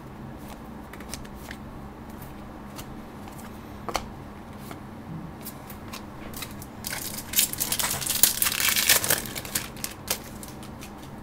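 Trading card pack wrapper crinkling as it is handled and torn open, with scattered small clicks of cards being handled. The crinkling is loudest and densest for a couple of seconds starting about seven seconds in.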